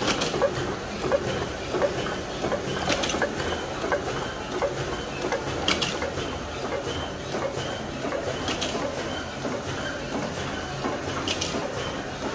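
Shiki 30MDFU flatbed label printing machine running roll to roll: a steady mechanical clatter with a light tick about every two-thirds of a second and a sharper click about every three seconds.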